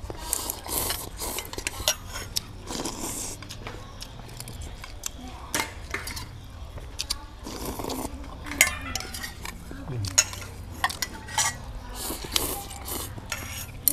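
Noodle soup being eaten with chopsticks: noodles slurped in short noisy stretches, with frequent sharp clinks of chopsticks against small stainless-steel bowls.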